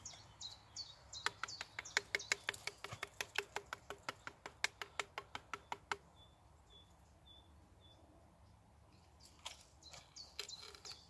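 A knife tapping rapidly against a cut plant stem: a fast, even run of sharp knocks, about six a second, that stops after about five seconds, with a few more knocks near the end. Small birds chirp throughout.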